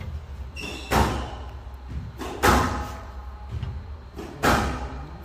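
Squash ball being struck and hitting the court walls: three loud, sharp cracks about one and a half to two seconds apart, each echoing in the hall. A brief high squeak comes just before the first.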